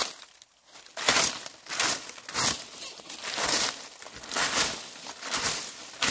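Dry leaves being swept, crackling and rustling in repeated strokes about once a second.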